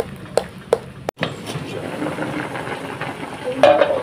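A utensil beating an egg mixture in a plastic bowl, clicking against the bowl three times. After about a second this gives way to a pot of vegetable soup at a rolling boil on a gas stove, a steady bubbling, with a short louder noise near the end.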